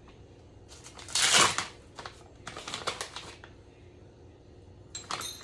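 Baking soda container and measuring spoon being handled: a loud rustle about a second in, then a quick run of small clicks and scrapes as the soda is scooped out.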